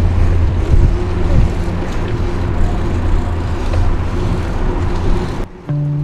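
Wind buffeting the microphone and a low rumble of riding noise from a moving bicycle. It cuts off suddenly about five and a half seconds in, and music with held notes begins.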